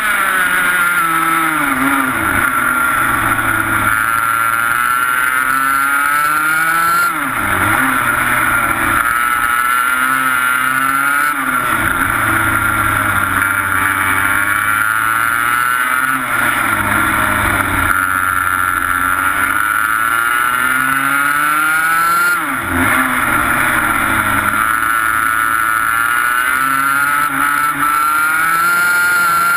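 125cc two-stroke TaG kart engine heard from on board at racing speed, its pitch climbing under acceleration and dropping sharply as the driver lifts for each corner, several times over.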